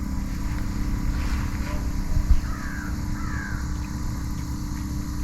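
A bird calling twice, two short falling calls about halfway through, over a steady low rumble.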